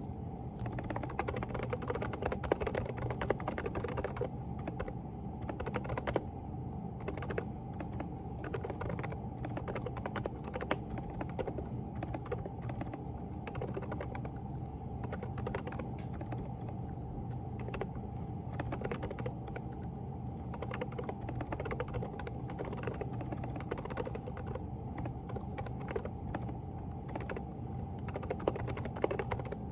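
Continuous fast typing on a Groovestone GV10 mechanical keyboard with hand-lubed low-noise Coral 38g switches, keystrokes coming in a dense unbroken run over a steady low hum.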